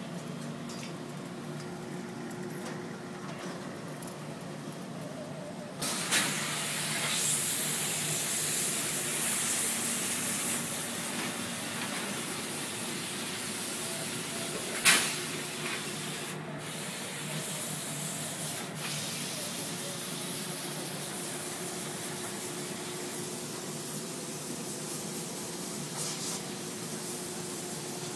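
Forenta Bantam lay-down steam press running with a steady hum. About six seconds in, a loud hiss of steam starts suddenly, then eases but keeps going. A single sharp click about halfway through is the loudest moment.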